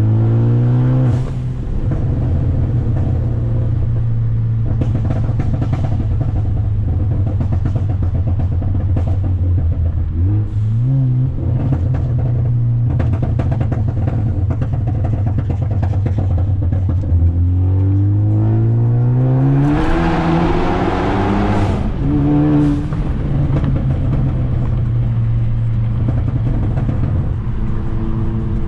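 Ford Focus ST engine and exhaust, made loud by a catless downpipe, running at a mostly steady pitch with scattered pops and crackles. About two-thirds of the way through the revs climb and a loud rasping burst follows.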